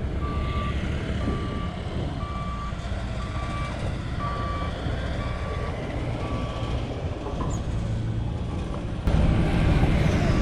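A vehicle's reversing alarm beeping over an engine running, about one and a half beeps a second, stopping about seven seconds in. The engine rumble grows suddenly louder near the end.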